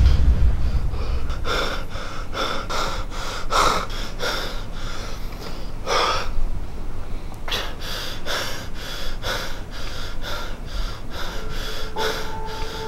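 A man breathing hard in rapid, short gasps through an open mouth, with one longer, deeper breath about six seconds in: distressed, panicked breathing.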